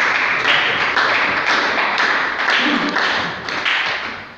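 A small audience applauding, the clapping falling into a rhythm of about two beats a second and dying away near the end.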